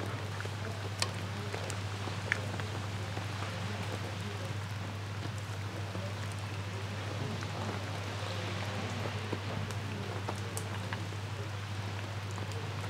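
Pot of carp fish stew simmering in an enamel cauldron, a steady bubbling patter, with a few sharp clinks of the metal ladle against the pot and bowl.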